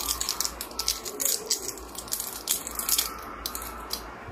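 Plastic packaging crinkling and crackling as it is handled, in a quick run of small crackles that thins out about three and a half seconds in.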